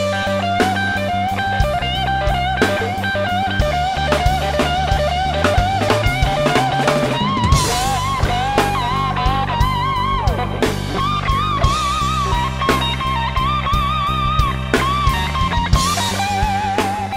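Background music: a rock instrumental with an electric guitar playing a lead line with vibrato over steady bass and drums.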